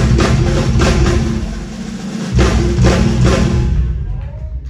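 Live drum kit playing a solo, with heavy bass drum under repeated strikes. There is a short break about two seconds in, then the playing dies away near the end.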